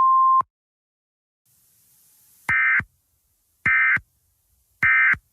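A short steady beep, then, about two and a half seconds in, three short bursts of Emergency Alert System digital data about a second and a quarter apart, with a faint hiss just before them. The three short bursts right after the warning message are the EAS end-of-message (EOM) code that closes the alert.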